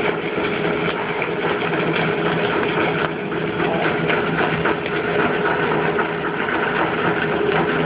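Stick-welding arc crackling steadily as a 7024 rod is run at about 100 amps, over a steady hum from the welder.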